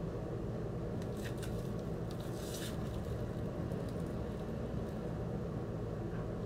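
Plastic shrink wrap on a vinyl LP sleeve crinkling as the record is turned over in the hands: a few brief crackles in the first few seconds, over a steady low background hum.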